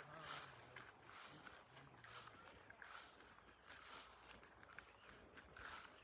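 Footsteps at an unhurried walking pace, about one step a second, over a steady high-pitched drone of summer insects, with faint voices in the distance.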